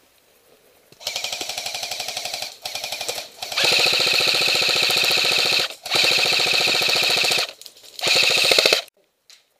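Airsoft rifle firing on full auto in five long bursts, a rapid even rattle of shots with short pauses between bursts.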